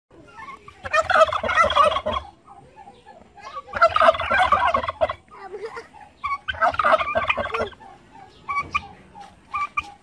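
Domestic tom turkeys gobbling: three loud, rattling gobbles of about a second each, roughly three seconds apart, followed by a few short, softer calls near the end.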